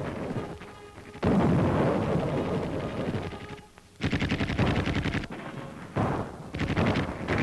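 Artillery fire: a sudden heavy boom about a second in that dies away over a couple of seconds. It is followed by bursts of rapid machine-gun fire that start about four seconds in, break off briefly and start again near the end.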